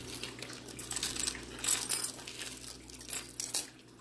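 Small metal jewelry pieces (necklaces, pendants, bracelets) clinking and jingling against each other as they are rummaged through and sorted by hand, in short clusters of sharp clinks.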